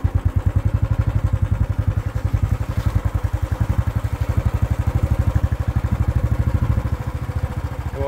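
Motorcycle engine running at a steady speed while riding, with an even, rapid low pulsing throughout.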